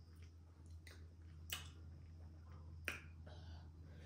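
Quiet close-up eating sounds: soft chewing with two sharp mouth smacks about a second and a half apart, over a low steady hum.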